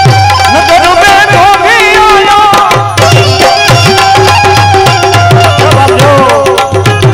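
Gujarati devotional bhajan music played instrumentally: a hand drum keeps a steady beat of deep strokes under long held notes and a melody line that slides up and down.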